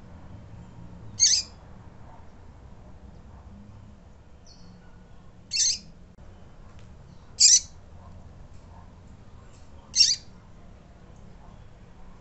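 Female double-collared seedeater (coleiro) calling: four short, high peeping notes spaced a few seconds apart. This is the female's call that draws male coleiros into song.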